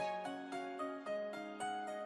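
Background music: a light plucked or keyboard melody, notes changing every few tenths of a second.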